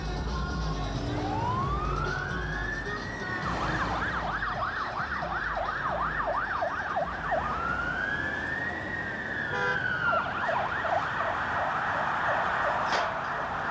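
Emergency vehicle siren switching between a slow rising-and-falling wail and a fast yelp of about three cycles a second, wail and yelp twice over. A low rumble of street traffic sits underneath in the first few seconds.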